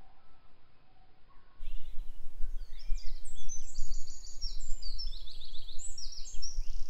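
Songbirds singing in woodland, a dense run of rapid, repeated high phrases that starts abruptly about a second and a half in, over a low wind rumble on the microphone. Before that, faint music trails off.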